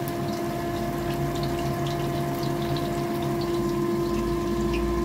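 Battered banana fritters deep-frying in hot oil in a wok: steady sizzling with scattered small crackles, over a steady hum.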